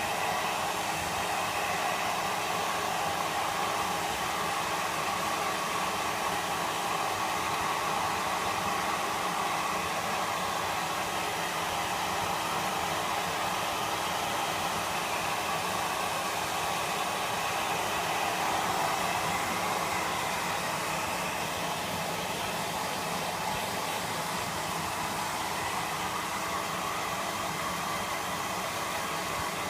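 Hair dryer running steadily, blowing on a wet Pomeranian's coat: a constant rushing noise with a faint steady hum underneath.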